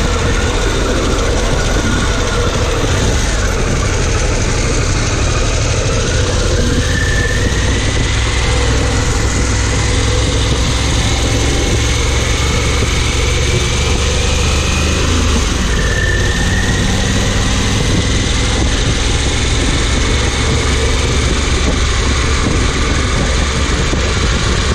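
Harley-Davidson Pan America's Revolution Max 1250 V-twin engine running steadily, with a constant rush of noise over it.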